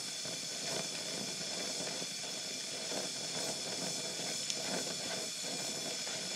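Oxy-acetylene welding torch flame hissing steadily while it holds a molten weld pool on a steel tube, with a faint tick about four and a half seconds in.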